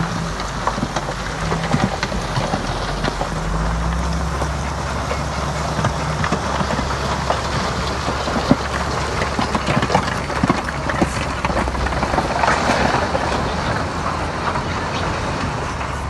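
Heavy diesel earthmoving machinery working: a steady engine drone under a constant irregular clatter of clanking metal and rock.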